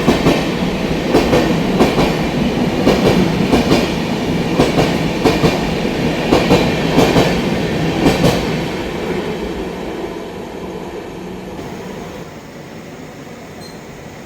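A passing train's wheels clattering over rail joints in a steady clickety-clack. The sound fades away from about nine seconds in.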